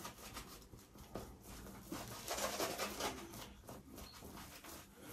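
Boar-bristle shaving brush swishing and rubbing, whipping shaving cream into lather, loudest a couple of seconds in.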